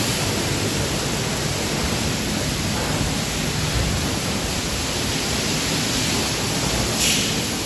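Automatic tunnel car wash running: water jets spraying and spinning cloth brushes, a steady rushing hiss. A brief, sharper hiss comes in near the end.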